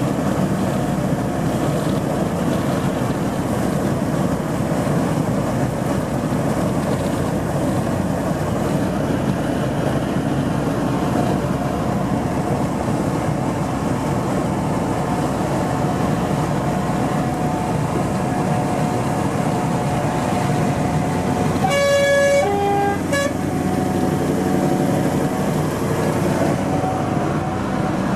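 Scania 164L 480 V8 truck engine running steadily at cruise, with road noise, heard from inside the cab. About 22 seconds in a horn sounds for a little over a second, changing to a second note partway through.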